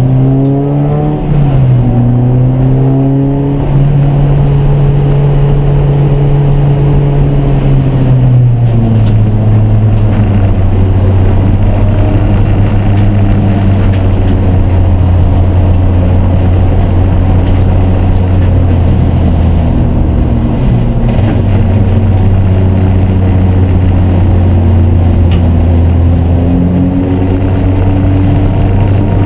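Race car engine running hard, heard from on board: its note changes pitch in the first couple of seconds, holds higher for several seconds, eases down about nine seconds in and then stays steady.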